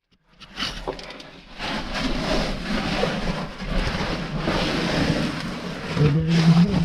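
Rustling and scraping of clothing and gear against rock, with handling noise on the camera, as a caver crawls through a narrow cave passage. A person's low voice is heard briefly near the end.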